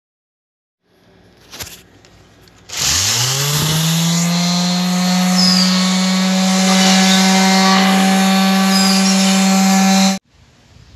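Handheld electric sander: a click, then the motor winds up in pitch and runs with a steady hum while sanding a wooden board. It cuts off suddenly near the end.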